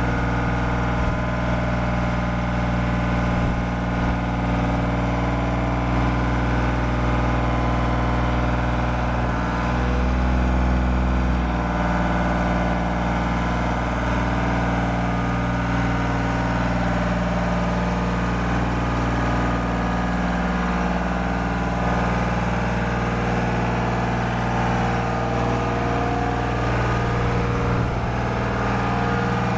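Engine of a 2006 Genie GS-3383 rough-terrain scissor lift running steadily, with a brief change in its note about ten seconds in.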